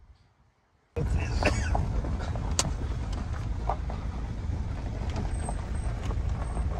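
A car driving slowly, heard from inside with the window open: a steady low rumble of engine, tyres and wind that starts abruptly about a second in, with scattered small ticks and knocks.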